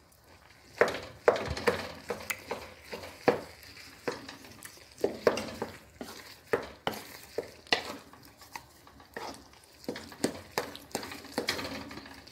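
Wooden spatula stirring and folding cooked glutinous rice through a brown syrup in a nonstick wok, with repeated irregular scrapes and knocks against the pan starting about a second in. This is the biko mixture being cooked until it turns sticky.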